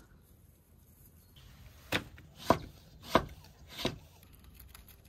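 Large kitchen knife slicing tomatoes on a wooden cutting board: four cuts about two-thirds of a second apart, each ending in a knock on the board, starting about two seconds in.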